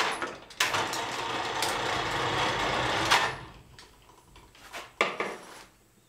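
Overhead crane hoist running steadily for about two and a half seconds, with a brief stop just after the start, as it lowers a tilting drill press column back. A short clunk and rattle follow about five seconds in.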